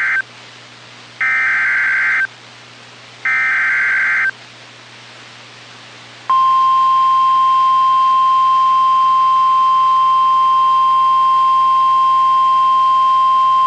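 Emergency Alert System SAME header on NOAA Weather Radio: the tail of one burst of warbling digital data, then two more one-second bursts about two seconds apart, marking the start of a new warning. About six seconds in, the steady single-pitch 1050 Hz weather radio alert tone begins and holds.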